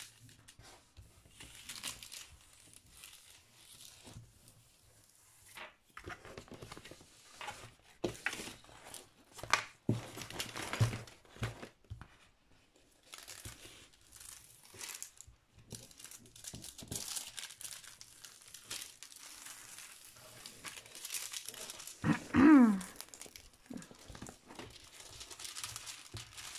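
Clear plastic cover film on a diamond painting canvas crinkling and rustling on and off as a hand smooths it flat. Near the end, one brief voice-like sound falls in pitch.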